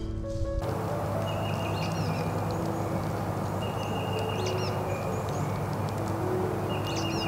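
A bird calling three times, a few seconds apart, each call a short high note with quick chirps above it, over a steady outdoor hiss and soft held background music notes.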